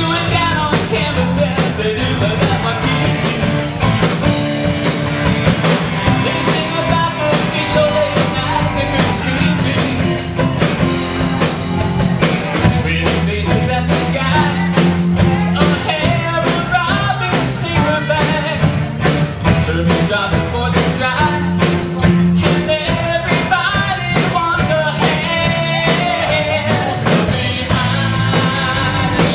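Live rock band playing a song: a singer over electric guitars, keyboard and a steady drum beat.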